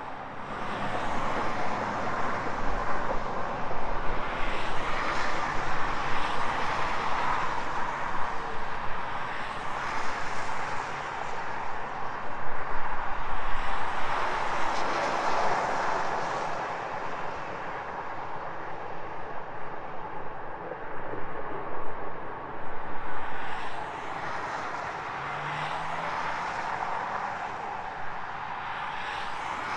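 Several cars passing one after another on a highway, each swelling into a rush of tyre and engine noise and then fading, over a steady hum of more distant traffic.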